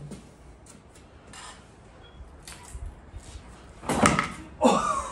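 Century-old hand-lever bench shear cutting through 1/16-inch steel sheet: light metal clicks while the sheet is set in the blades, then a loud shearing snap with metallic ringing about four seconds in as the lever is pulled down, followed by a short falling tone.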